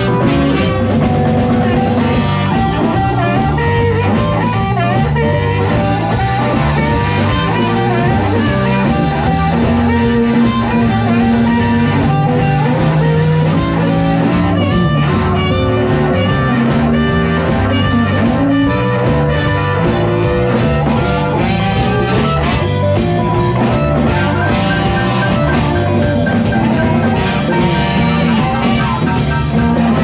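Live band playing an instrumental number at full volume: electric guitar, drum kit, keyboard and saxophone, with a harmonica joining at the microphone.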